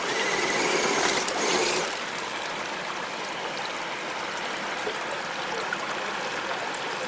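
Steady rush of a small stream running over rocks. For the first two seconds it is joined by the higher whine of a Tamiya CC-01 radio-controlled crawler's electric motor and gears as it climbs.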